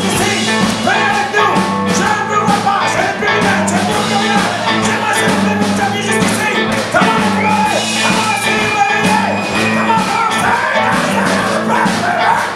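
Live rockabilly band playing loudly: twangy electric guitars over a driving drum beat, with held and bending guitar notes.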